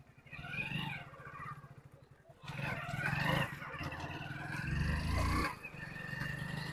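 Hero Splendor Plus's single-cylinder engine running as the motorcycle rides toward the listener on a test ride, with loud wavering calls over it and a low rumble that swells about five seconds in.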